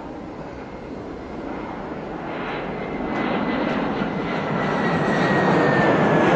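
Jet airliner taking off: engine noise swelling steadily louder, with a thin high whine that slowly sinks in pitch.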